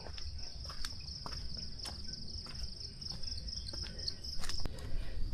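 An insect's high, steady trill with a fast pulsing texture, cutting off about four and a half seconds in, over scattered faint clicks and a low rumble.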